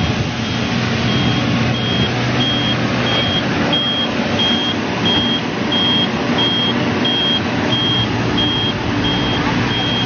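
New Holland E215B excavator's travel alarm beeping evenly, about three beeps every two seconds, starting about half a second in, over the steady sound of its running diesel engine.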